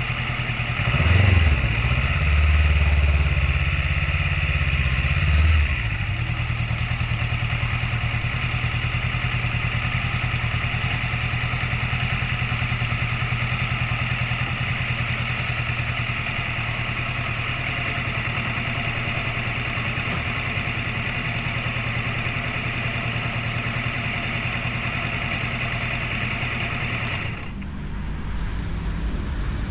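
Motorcycle engine running at steady revs, with a louder low rumble from about one to six seconds in. Near the end the sound changes abruptly and briefly drops in level.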